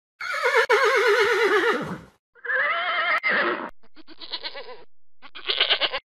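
Horse whinnying: a long, quavering neigh that slides down in pitch, then a shorter second whinny. Fainter rapid pulsing sounds follow, growing louder near the end.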